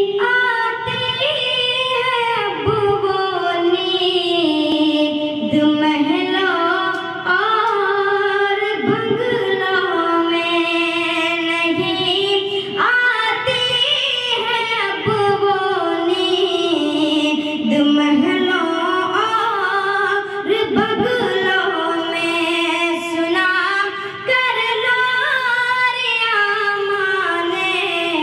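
A boy singing an Urdu ghazal solo into a handheld microphone, holding long notes with sliding, ornamented turns between them.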